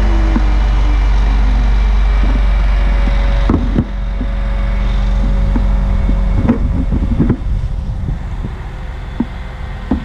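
Crane's engine running steadily while the climber hangs from its hook, with a few knocks and rustles from the rigging and branches partway through.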